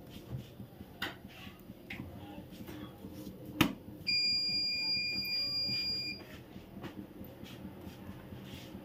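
A sharp click, then a steady high-pitched electronic beep held for about two seconds: a household appliance or inverter beeper sounding as mains power comes back after a power cut.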